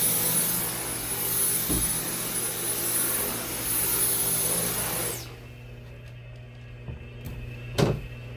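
Dyson V10 cordless stick vacuum running on carpet with a steady high whine and rushing suction. About five seconds in it is switched off and the motor winds down quickly. A single thump follows near the end.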